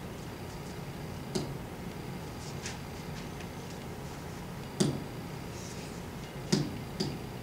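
A few sharp, irregular taps and knocks over a steady low room hum: one about a second and a half in, then two louder ones near five and six and a half seconds, and a softer one just after.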